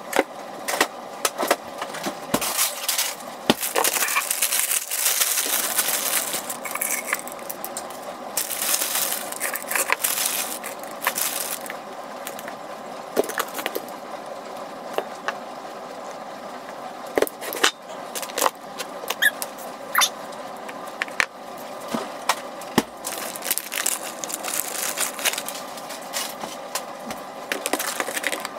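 Smoothie ingredients being loaded into a plastic blender cup on a benchtop: many short knocks and clicks of the cup and containers being handled, with two longer stretches of rustling, one a few seconds in and one around the ten-second mark, over a faint steady hum.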